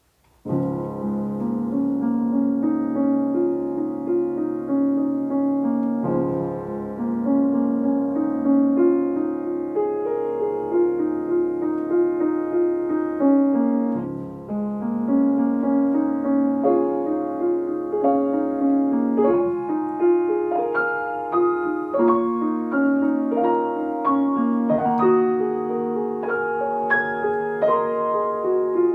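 Solo piano piece starting about half a second in: a flowing run of notes over bass chords that change every few seconds.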